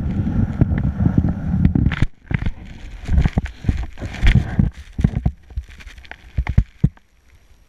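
Skis sliding and scraping over chopped-up snow, heard from a boot-mounted camera, with many short knocks and thumps; it goes much quieter near the end.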